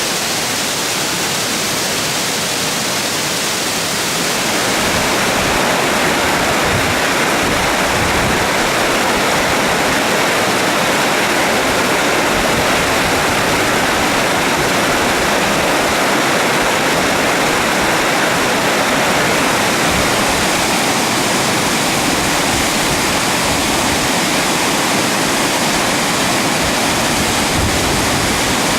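Waterfall and mountain stream rushing: a steady, loud wash of falling water that grows louder and fuller about four seconds in.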